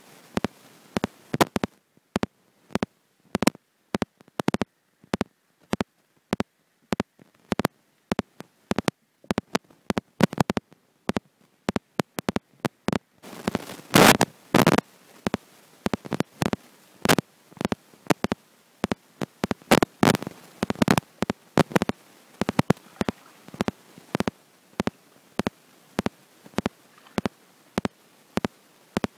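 Irregular sharp clicks and pops, a few to several a second, with louder clusters about halfway through and again about two-thirds in, picked up by an iPhone's microphone lying underwater.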